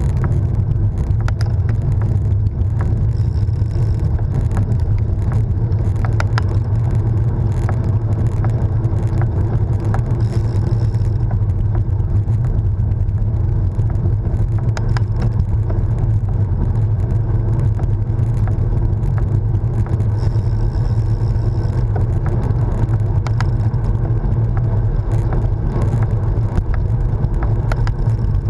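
Wind buffeting an action camera's microphone on a moving road bike: a steady loud low rumble with tyre and road noise, and a few faint clicks.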